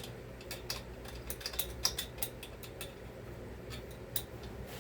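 Light, irregular clicks and taps of hand tools and small metal parts being handled on a workbench during a chainsaw teardown, over a low steady hum.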